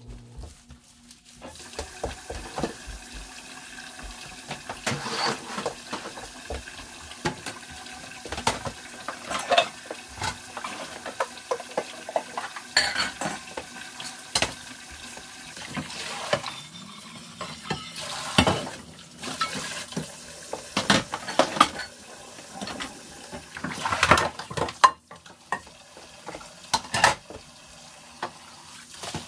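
Dishes and cutlery clattering: many irregular clinks and knocks over a steady hiss.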